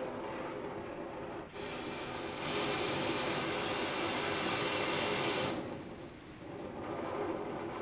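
Oxyacetylene torch flame hissing steadily as it heats steel plates for a tack weld, louder through the middle and dropping back briefly near the end.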